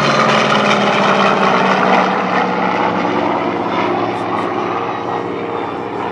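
Formation flyby of an A-1 Skyraider and an A-10 Thunderbolt II: a loud, steady mix of propeller and piston-engine drone with jet noise. It falls slowly in pitch and fades a little as the aircraft pass.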